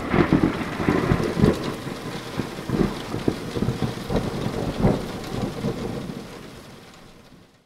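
Thunder rumbling over steady rain, loudest at the start and fading out to silence near the end.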